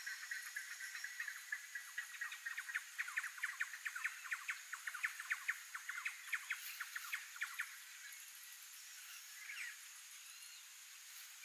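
A rapid series of short clicking chirps, about five or six a second, over a steady high-pitched insect drone; the chirps stop near the end, leaving the drone.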